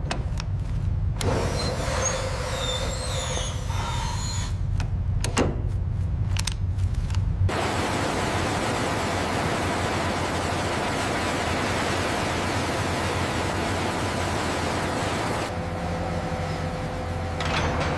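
Low mechanical rumble with scattered squeaks and clicks from heavy recovery machinery. About seven seconds in it gives way to a steady rushing noise like wind.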